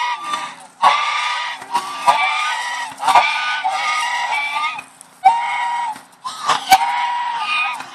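Several white domestic geese honking loudly and repeatedly, one harsh call after another with only short gaps, with a few sharp clicks among the calls.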